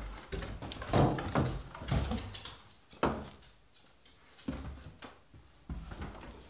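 Footsteps thudding down a staircase, about one step a second.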